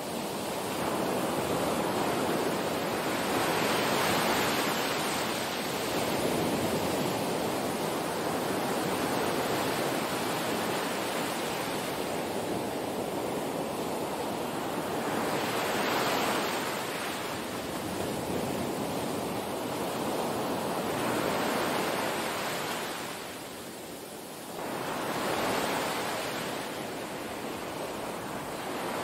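Small waves washing onto a sandy beach, the surf swelling every five seconds or so.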